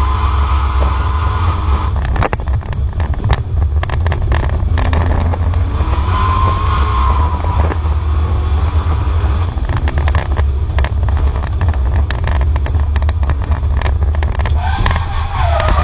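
Audi A4 2.0 quattro Super Touring race car's engine driven hard, heard inside the stripped, roll-caged cabin, with a heavy low rumble and an engine note that rises and falls with the throttle and gear changes. Many sharp clicks and knocks run through it.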